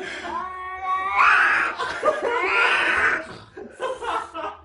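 A domestic cat yowling in drawn-out calls that rise at their start.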